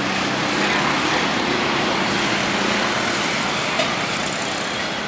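Steady road traffic noise from passing vehicles, with a low engine hum in the first half.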